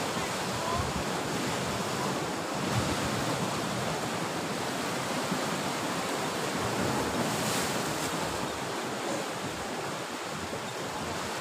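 Steady wash of sea surf breaking on a rocky shore, with wind on the microphone.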